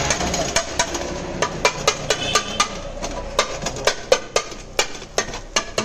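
Steel scoop striking and scraping a steel wok at about four clanks a second as beef intestines are chopped and stirred in the pan, over a steady frying sizzle.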